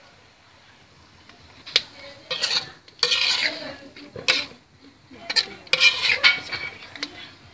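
Metal spatula and ladle scraping and clanking against a metal wok while stir-frying bean sprouts and minced meat. After a quiet first second and a half comes a sharp click, then several bursts of scraping and clatter, the loudest near the end.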